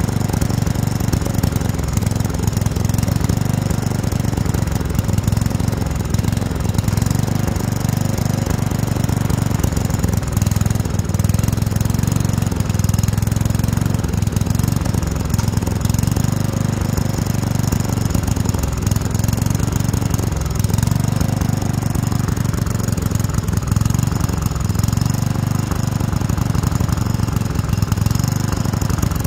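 Small engine of a riding lawn tractor running steadily with a fast, even beat.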